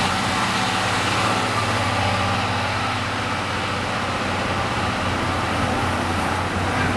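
Passenger coaches of a departing train rolling slowly past the platform: an even rumble of wheels and running gear over a steady low engine hum.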